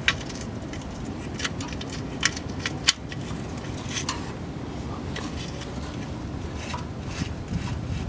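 Scattered sharp metallic clicks and taps of tools and the magnetic oil drain plug being handled, at irregular intervals over a steady low hum.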